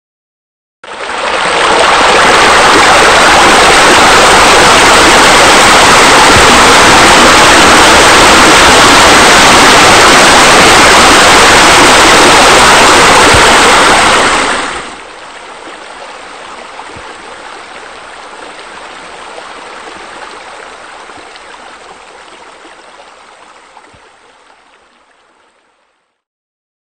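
Loud, steady rushing water, like a pool waterfall or fountain, starting about a second in. About halfway through it drops suddenly to a softer splashing that fades out near the end.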